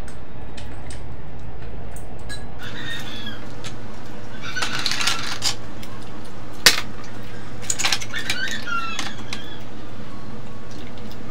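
Oyster shells clicking and scraping as they are pried apart by hand, with one sharp crack about two-thirds of the way through. Short chirping calls come in now and then over a steady low hum.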